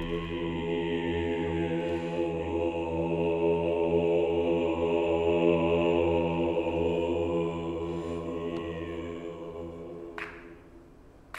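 A low, steady chant-like drone held on one pitch for about ten seconds, fading away near the end.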